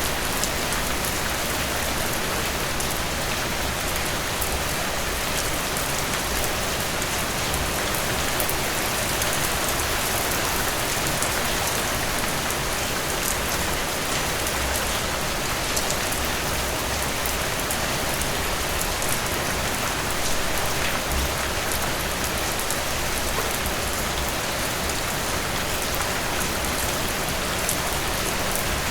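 Steady rain falling on a surface, a dense even hiss with many small drop patters.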